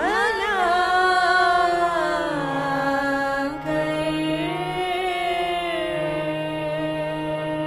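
A single voice singing a slow, ornamented melodic line, gliding between long held notes, over a steady drone.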